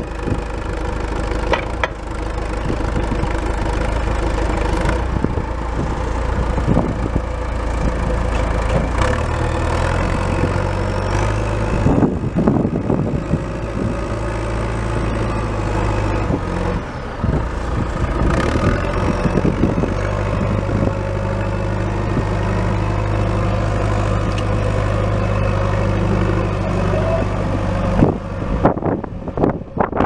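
John Deere 310SE backhoe loader's 4.5-litre four-cylinder turbo diesel running as the machine is driven, its engine speed rising and falling a few times.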